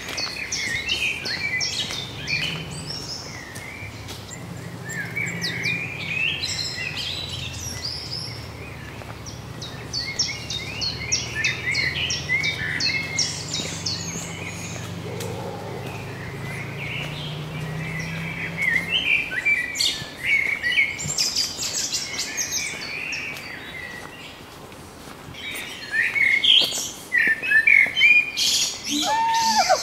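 Many birds chirping and twittering in quick, overlapping calls, with a low steady hum underneath that stops about two-thirds of the way through.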